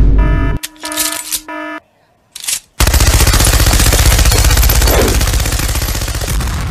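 Machine-gun sound effect: a long rapid burst of automatic fire starting about three seconds in and fading toward the end. Before it comes a short run of electronic beeping tones, then a brief pause.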